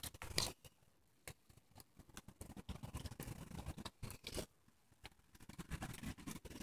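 Scattered, irregular soft clicks and scrapes close to the microphone, with a louder cluster about half a second in: handling noise from the phone being moved about in the hand.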